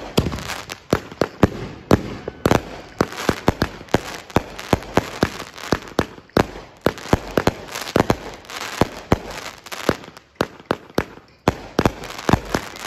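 A consumer aerial firework cake firing: rapid sharp bangs of shells bursting overhead, several a second, mixed with crackling stars. There is a short lull about ten seconds in.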